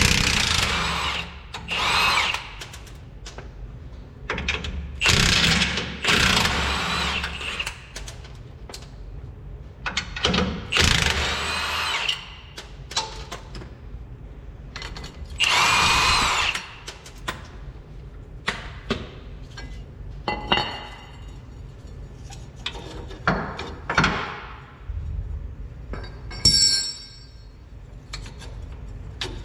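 A power tool run in repeated bursts of a second or two, spinning the nuts off a leaf spring's U-bolts, with short metallic clanks between the bursts.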